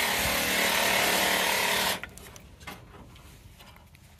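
A power tool running with a loud, steady hiss and a faint hum underneath, cutting off abruptly about two seconds in; after that only faint clicks of small parts being handled.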